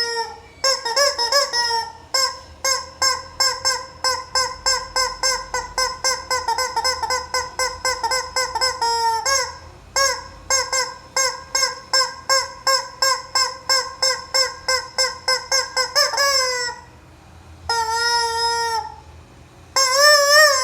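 Rubber squeaky chicken toy squawking in a fast run of short squeaks, about three or four a second, broken by a short pause. It ends with two longer drawn-out squawks.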